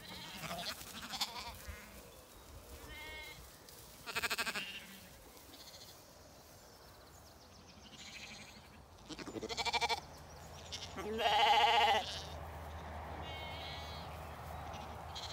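Zwartbles sheep and lambs bleating, several separate calls, the loudest a long bleat of about a second toward the end.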